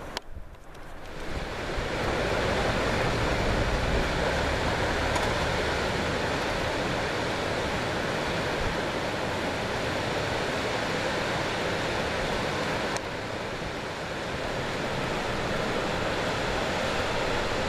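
Steady rush of falling water, an even hiss and roar with no distinct events. It swells in over the first couple of seconds and drops slightly in level about 13 seconds in.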